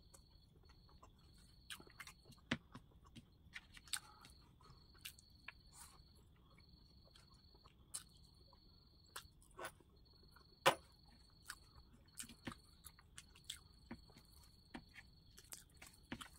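Close-up eating sounds of a meal of rice, dal and vegetables eaten by hand: fingers mixing rice on a plate and mouthfuls chewed, with soft wet smacks and clicks. A faint high trill runs in the background, starting and stopping every second or so.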